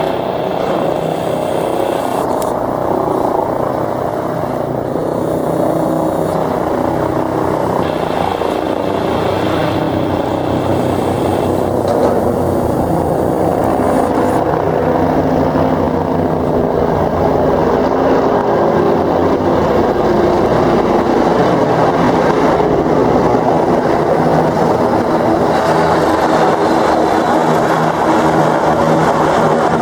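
Steady engine and rotor noise of approaching police helicopters, growing slowly louder.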